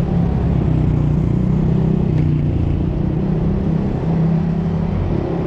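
Motor vehicle engine running with steady road rumble; the low engine note wavers slightly in pitch throughout.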